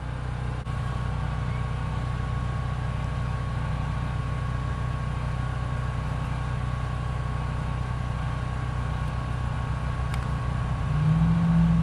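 Steady low mechanical hum from a running machine, with a thin high whine joining about half a second in; the hum grows louder and higher near the end.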